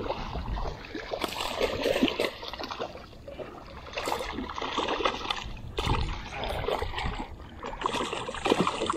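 A hooked fish thrashing and splashing at the water's surface close beside a small boat, in repeated irregular bursts.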